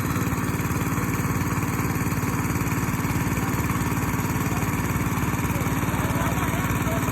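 Small engine running steadily at a constant speed, a fast even putter with no revving.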